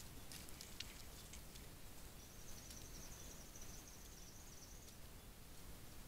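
Faint outdoor night ambience: a few light ticks or rustles in the first second and a half, then a high, thin wavering trill lasting about three seconds.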